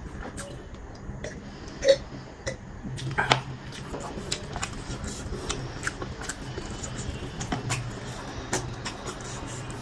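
Close-miked mukbang eating sounds: wet chewing, lip smacking and fingers squishing biryani rice, a stream of small clicks and smacks. There is a sharp louder knock about two seconds in.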